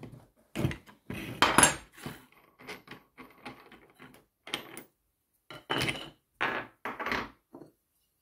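Irregular metal clinks and knocks as a pin spanner, flange nut and cutting disc are worked off an angle grinder and set down on a wooden workbench, loudest about a second and a half in.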